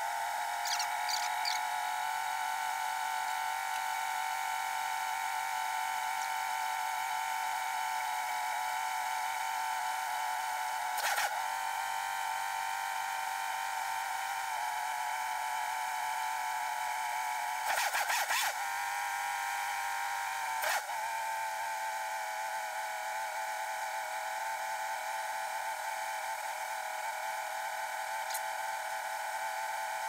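Handheld electric heat gun running steadily, a whine of fan tones, aimed at the Holley carburettor's automatic choke to warm it so the choke flap opens. A few short knocks are heard about eleven, eighteen and twenty-one seconds in, the one at eighteen seconds a clatter of about a second.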